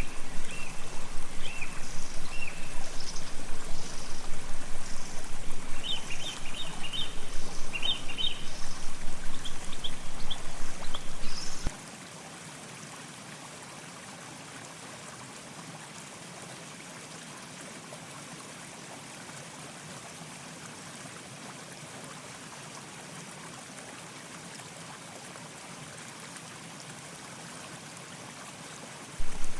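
Running water trickling steadily while small birds chirp in short repeated bursts. About twelve seconds in, the sound cuts off abruptly to a faint, steady hiss.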